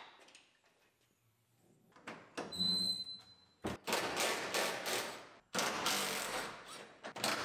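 A truck cap's rear glass hatch unlatches with a click and lifts on its struts with a brief high squeak. Then a hand ratchet clicks rapidly in bursts, loosening the cap's mounting clamps.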